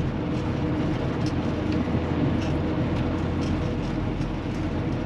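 Semi truck's diesel engine running steadily at low speed, heard from inside the cab, while the truck creeps through slippery mud, with a few faint clicks over the rumble.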